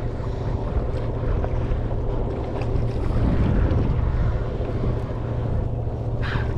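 Wind buffeting the microphone in a steady low rumble, with sea noise behind it and a brief louder rush near the end.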